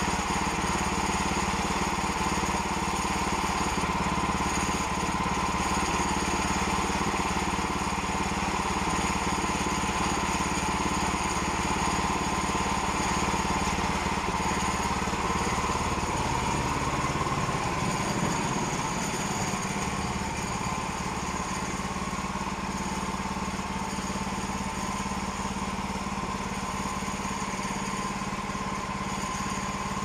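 The 9.5-horsepower engine of a Woodland Mills HM122 bandsaw sawmill running steadily. About two-thirds of the way through its low note shifts and it gets a little quieter.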